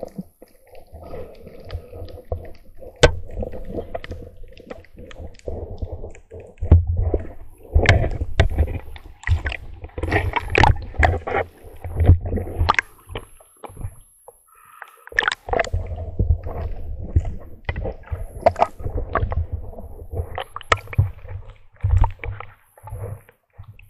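Water sloshing and gurgling around a camera in an underwater housing as a spearfisher moves about, with irregular low rumbling surges and many sharp clicks and knocks.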